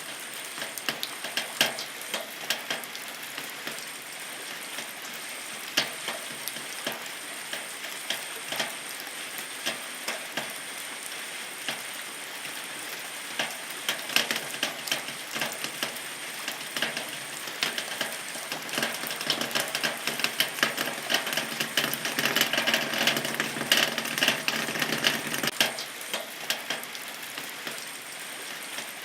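Rain falling on a zinc-coated steel roof: a steady patter with many separate drop hits on the metal. It grows heavier about two-thirds of the way through, then eases suddenly near the end.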